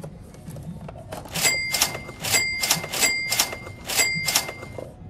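Sharp metallic clicks, each ringing briefly like a small bell. They come in four evenly spaced pairs about three-quarters of a second apart, from the coin tray and cash box of a combination vending machine as they are pulled and handled.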